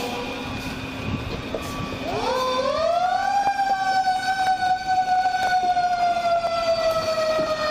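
A vehicle's reversing beeper sounds briefly. About two seconds in, a fire engine's mechanical siren winds up, rising steeply in pitch, then slowly winds down with its pitch gradually falling.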